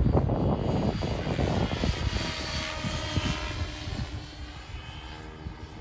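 Align T-Rex 550L electric RC helicopter's rotor and motor whine, its pitch sweeping up and down as it climbs and pivots through a stall turn, growing steadily fainter. A low rumble sits underneath, heaviest at the start.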